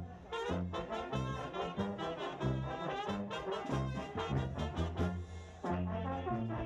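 Brass band playing a dance tune: trumpets and trombones over a steady, repeating bass line. The music briefly drops away about a second before the end, then comes back in.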